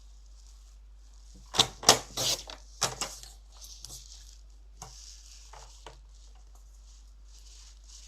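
Paper being cut into strips and handled: a quick cluster of sharp clicks and taps between about one and a half and three seconds in, then fainter ticks and rustling.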